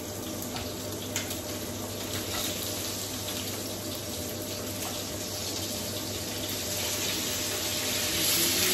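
Kitchen tap running steadily into the sink as water spinach is washed, with a few light knife taps on a cutting board. Near the end a louder sizzle comes in as chopped tomato goes into the hot oil.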